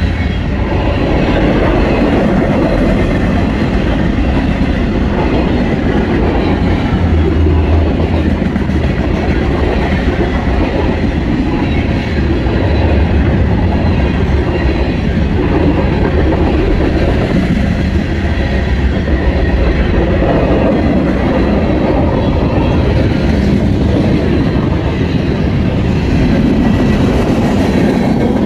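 Norfolk Southern freight train rolling past close by, its cars running by steadily on the rails.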